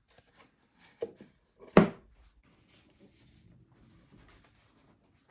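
Handling noises of a foam RC plane and its LiPo battery being fitted: a light knock about a second in and a sharper, louder knock just under two seconds in, then soft rubbing and rustling.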